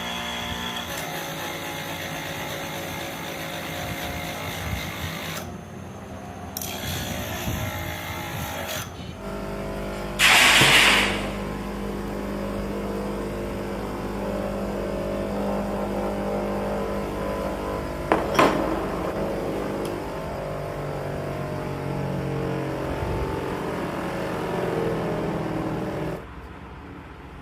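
Workshop power machinery running with a steady, even-toned drone. A loud harsh burst comes about ten seconds in, and a short sharp one near eighteen seconds.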